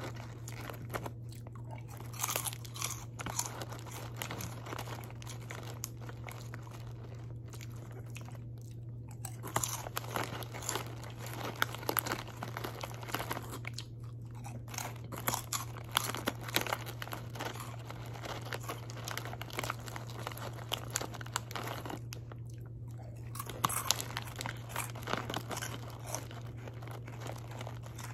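Close-up crunching and chewing of crunchy hot-Cheetos-style corn snacks (Durkio's Flames Hot Crunchables), in many short crackling bites.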